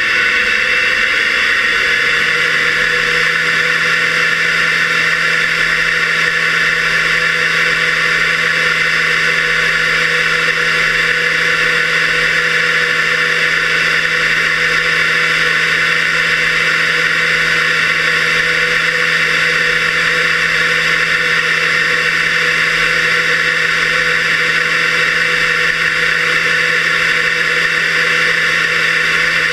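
Fairchild J44 turbojet engine running, its whine rising slightly in the first couple of seconds and then holding steady. It is heard muffled through a waterproof camera case, mostly as vibration carried up the mounting frame, with the engine's shaft and gears audible.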